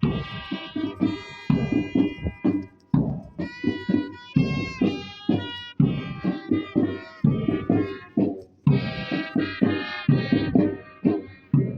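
Music: a steady, quick drum beat under a melody of held notes.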